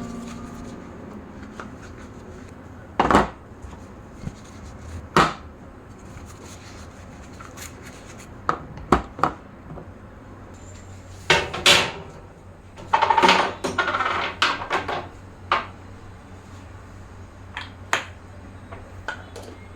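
Kitchenware being handled: scattered clinks and knocks of dishes, utensils and pans set down and moved, with a short stretch of rattling about two thirds of the way through.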